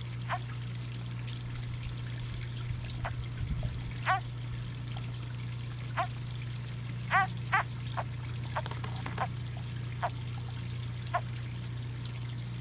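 A steady trickle like running water, under about a dozen short, high chirps that each fall in pitch. The loudest chirps come a few seconds in and as a quick pair just past the middle.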